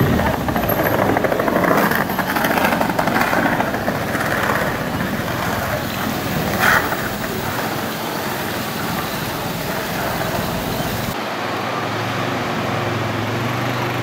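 Steady splashing hiss of a pavement fountain's row of water jets, over outdoor pedestrian ambience. About eleven seconds in the sound changes abruptly to a duller street ambience with a low steady hum.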